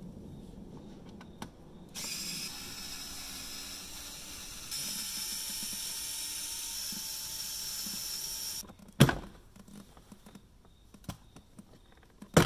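Cordless power screwdriver running for about six seconds as it backs out a Torx screw, a steady high whine that gets louder partway through. It stops suddenly, and a sharp knock follows about half a second later.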